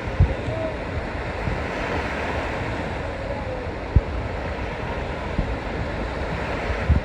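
Steady rush of sea water and wind noise on the microphone around an outrigger canoe under way, with a few short low thumps.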